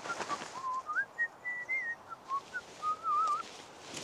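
A person whistling a wandering tune, with notes sliding up and down and a short warbling trill near the end, while fabric rustles as it is handled.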